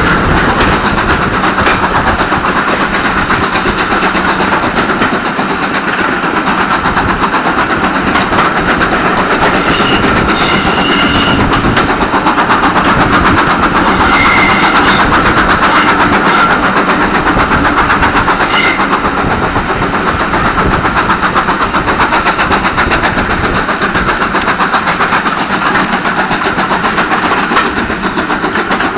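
A steam-hauled train running along the line, heard from an open carriage window: a loud, steady rush of wind and running noise from the carriages, with the GWR Manor-class 4-6-0 locomotive 7828 Norton Manor working ahead.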